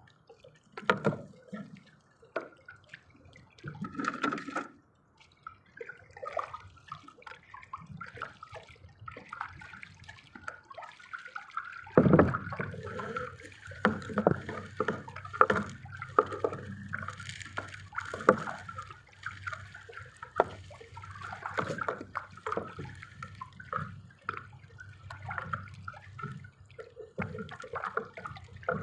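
Water splashing and sloshing with irregular knocks and taps. About halfway through a steady low rumble comes in and stays under the splashing.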